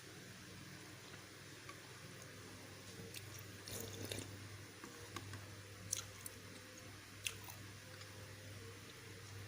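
Faint chewing of pentol (Indonesian meatballs), with a few soft wet mouth clicks, a cluster about four seconds in and single sharper ones near six and seven seconds, over a steady low hum.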